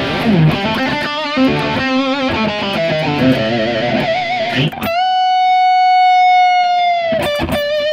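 PRS 10 Top electric guitar with P90 pickups, played through a Kemper amp profiler on a Bogner amp profile, playing a lead line. Several notes with wide vibrato come first, then one long sustained note held from about five seconds in, with a brief note after it. The tone is described as buttery.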